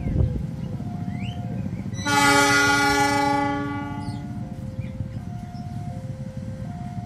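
Diesel locomotive horn sounding one blast about two seconds in, held for about a second and a half and then fading, over a steady low rumble.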